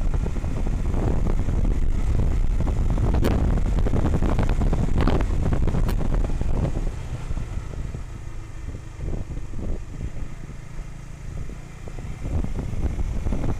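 Honda CBR150R's single-cylinder engine running under way, mixed with heavy wind noise on the microphone. The sound drops noticeably for several seconds past the middle, then picks up again near the end; two sharp clicks come in the first half.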